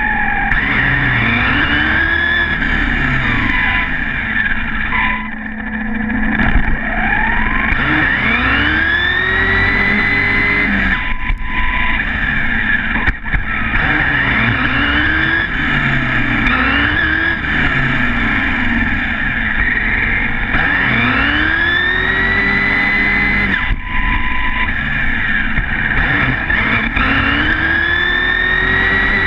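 Tenshock X802 2100Kv brushless motor driving a Team Associated RC8.2e 1/8-scale electric buggy, heard from a camera mounted on the car. It gives a high whine that rises in pitch with each burst of throttle and levels off at speed, over and over, above constant road noise from the tyres on asphalt.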